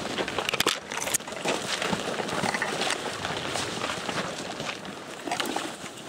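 Footsteps pushing through dense brush: branches swishing against clothing and backpacks, with a steady run of small crackles and twig snaps.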